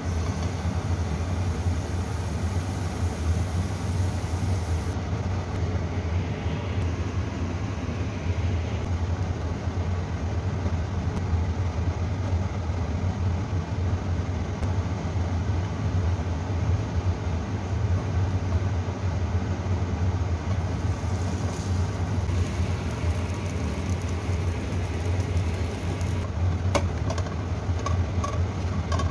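Steady low rumble, like a running motor or burner, heard throughout. Near the end come a few light clicks as a plastic spatula is worked under a pancake in a non-stick pan.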